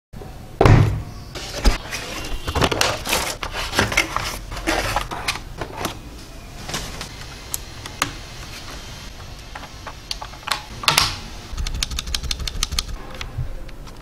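Scattered clicks and knocks from a Dareu EK868 low-profile mechanical keyboard being handled, with a loud thump near the start. Near the end comes a quick run of key clicks as it is typed on.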